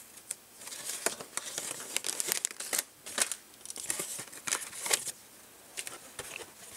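Packaging rustling and crinkling as plastic bags of electronic components and a folded instruction sheet are shaken out of a cardboard kit box, with the cardboard flaps rubbing and scraping. The noise comes as irregular bursts of crackles, with a quieter stretch a little past halfway.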